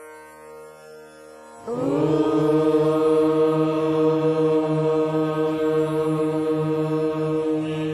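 A quiet, steady instrumental drone, then, a little under two seconds in, a group of voices comes in chanting one long held syllable on a single steady low note that carries on over the drone.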